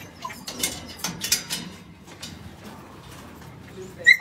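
Clanks and rattles of a steel-barred dog cage being handled, with several sharp knocks in the first second and a half. Near the end comes one loud, short, high-pitched sound.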